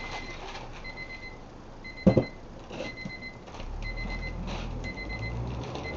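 An electronic beep repeating about once a second, each beep about half a second long. About two seconds in there is one loud sharp knock, and from about three and a half seconds in a low rumble joins the beeping.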